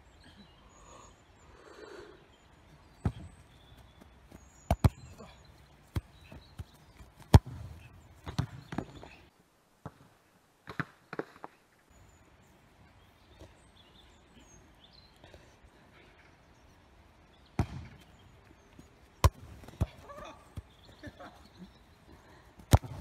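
A football being kicked on an outdoor grass pitch: single sharp thuds every few seconds, the last one close, with faint distant voices in between.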